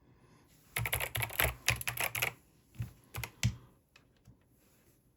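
Keys and buttons of an 8BitDo Retro Mechanical Keyboard being pressed. A quick run of many clicks comes first, followed by a few single clicks.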